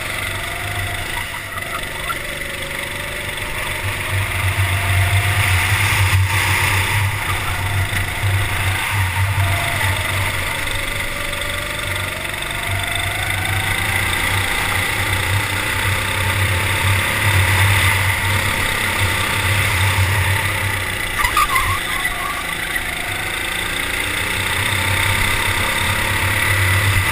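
Racing kart engine running under the driver, heard from a camera on the kart, its note swelling and easing and gliding up and down in pitch as the kart accelerates down the straights and lifts for the corners. It is loudest for several seconds at a time, roughly four, fifteen and twenty-four seconds in.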